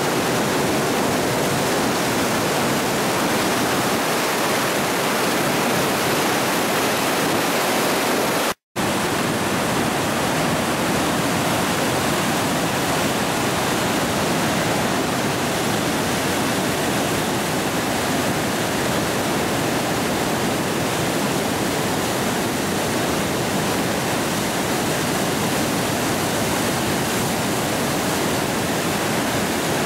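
Floodwater of a creek in flash flood rushing and churning through rapids and standing waves: a loud, steady roar of water. The sound drops out for an instant about nine seconds in.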